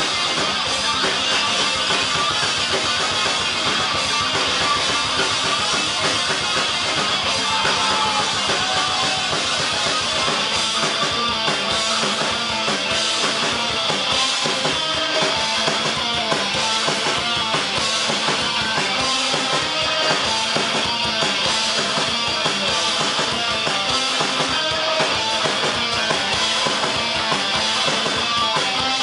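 A heavy metal band playing live: electric guitars and a drum kit in a steady, dense wall of sound heard from the crowd in front of the stage.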